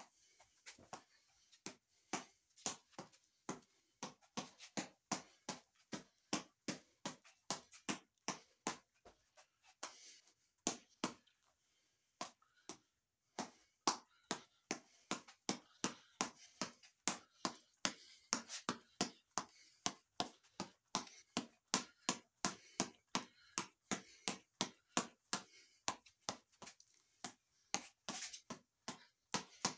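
Fists striking a headband boxing reflex ball on its elastic cord, a sharp slap with each hit, about two hits a second, with a short pause about twelve seconds in.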